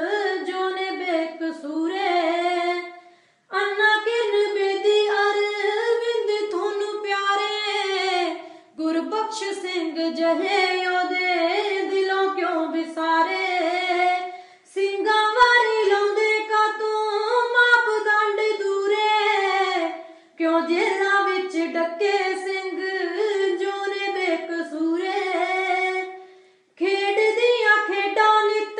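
A high voice singing unaccompanied, in long phrases of about five to six seconds with short breaks for breath between them.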